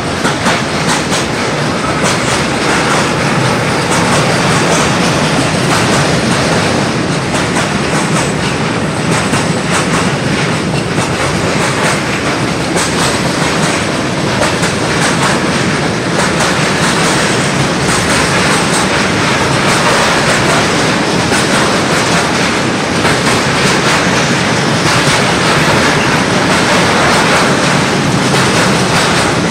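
Freight train of tank wagons rolling past close by: a continuous run of wheel clatter and rail-joint clicks, steady in level throughout.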